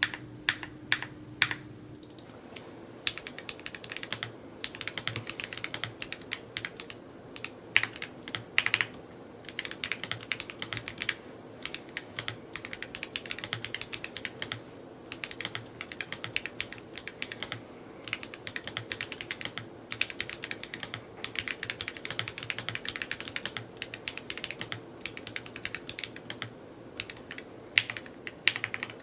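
Typing on an Evo80 mechanical keyboard: a fast, continuous run of key clicks, with a few slower, separate keystrokes in the first two seconds.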